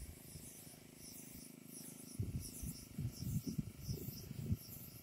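Insects chirping in a steady, repeating high-pitched pulse, with a few low muffled thumps in the middle.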